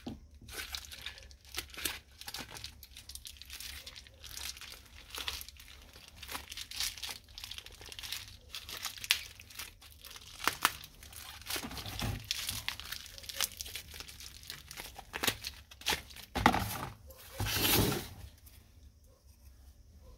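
Bubble wrap crinkling and crackling as it is handled and pulled open to unwrap circuit boards, irregular, with louder crackles near the end. It stops shortly before the end.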